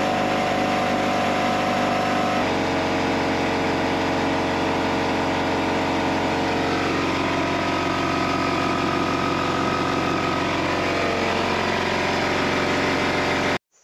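Bostitch pancake air compressor running steadily as it fills its tank, then cutting off suddenly near the end.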